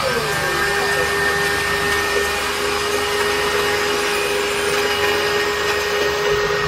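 Table saw running steadily with a constant whine while a length of timber is fed along the fence, ripping a few millimetres off its edge.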